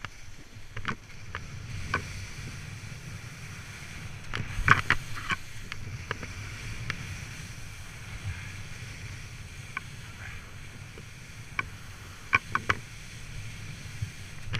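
Skis sliding over snow, a steady rushing noise with wind on the camera, broken by scattered sharp clicks and knocks, the loudest cluster about five seconds in and a few more near the end.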